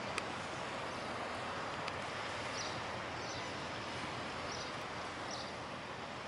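Steady outdoor harbour ambience: an even hiss of wind and water, with a few short high chirps from small birds scattered through it.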